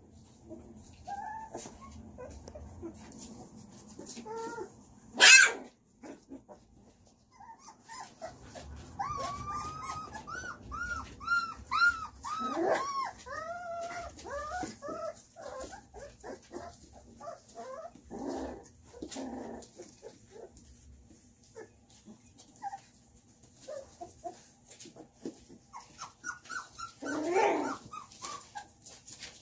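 Young puppies whimpering and squeaking, a string of short high cries that rise and fall, thickest in the middle of the stretch. About five seconds in there is one sharp, loud sound, the loudest moment, and near the end another louder cry.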